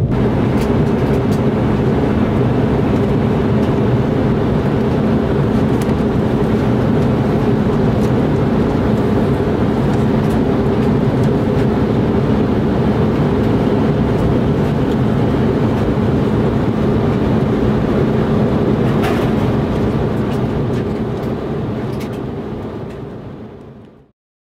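Steady jet airliner cabin noise in flight: an even rush of engine and airflow with a low hum, a few faint clicks over it, fading out near the end.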